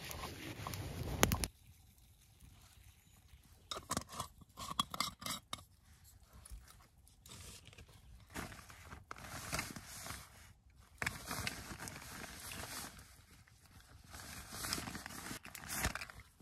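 A louder stretch of noise cuts off abruptly about a second and a half in. After that come scattered scrapes, taps and rustles with quiet gaps between: handling noise from someone working at a campsite.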